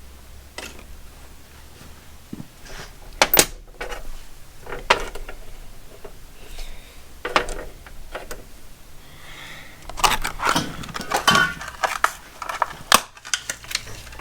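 Loose steel M8 flange bolts clinking and rattling against each other as they are handled, with a few separate clinks and then a dense run of clinks in the last few seconds.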